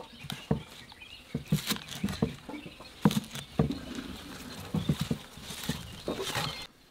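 Chinese cleaver chopping green onions on a wooden chopping block: irregular knocks of the blade on the wood, stopping suddenly near the end.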